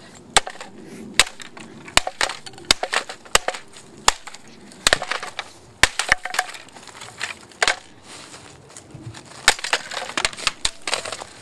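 Mallet blows smashing a plastic Nerf Elite Rapidstrike blaster on a wooden board: many sharp knocks and cracks in irregular clusters as pieces break off.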